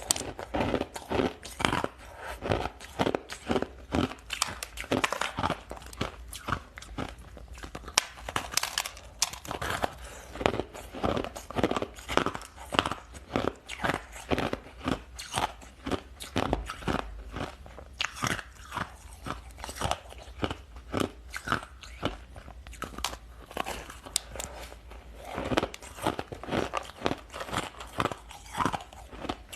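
Ice being bitten and chewed close to the microphone: a steady run of sharp crunches, about three a second.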